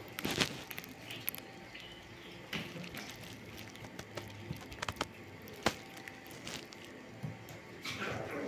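Cats eating from a plastic bowl on a tile floor: scattered light clicks and small taps from mouths and the bowl.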